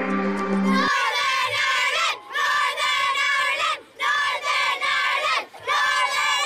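Intro music stops about a second in, then a large group of children chants and shouts together in unison, in repeated bursts about a second and a half long with brief breaks between them.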